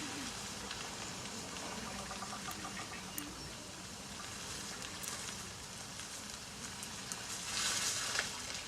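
Small birds making faint chirps and twittering clicks over a steady hiss, with a brief louder rustle or flutter near the end.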